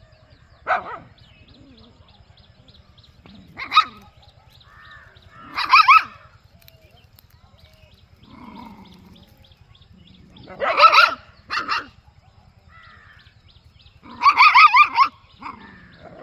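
A puppy giving short, high-pitched yaps and barks, about six of them, with the loudest ones in the middle and near the end.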